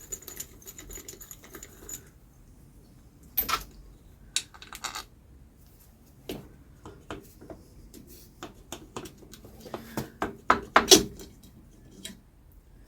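Metal tools and engine parts clinking and knocking while a BSA Bantam two-stroke engine is dismantled: light rapid ticking for the first two seconds, then scattered sharp knocks, loudest about eleven seconds in.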